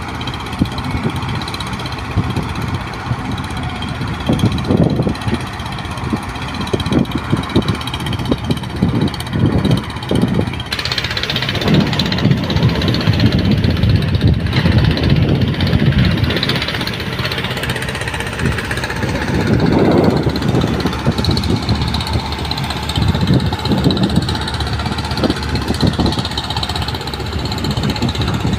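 Excavator diesel engine running under load, with irregular knocks and clanks from the working machine. The sound changes abruptly about eleven seconds in.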